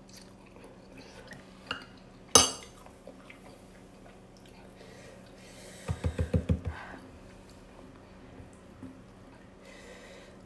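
Metal spoon and chopsticks clinking and scraping against a ceramic noodle bowl. One sharp clink comes about two seconds in, and a quick run of about seven dull knocks comes near six seconds.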